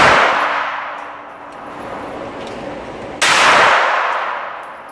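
Handgun shots in an indoor shooting range: the echo of one shot dying away, then another sharp shot about three seconds in, ringing out for over a second in the enclosed range.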